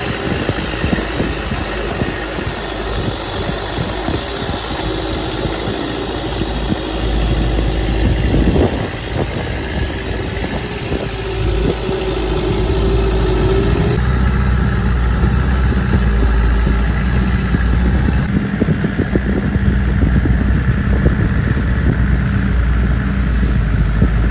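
Long-tail boat's engine running steadily while the boat is under way, heard from on board; its low note grows heavier about halfway through.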